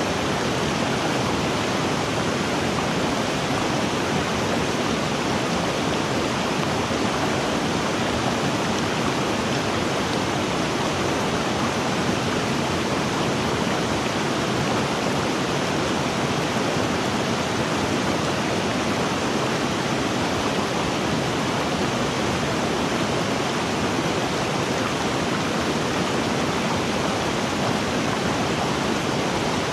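River water rushing over rocks: a steady, even rush with no breaks.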